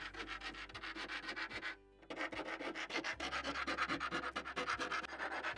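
Metal file rasping back and forth along the cut edge of a metal door in quick, even strokes, with a brief pause about two seconds in: knocking down the rough edges the jigsaw left.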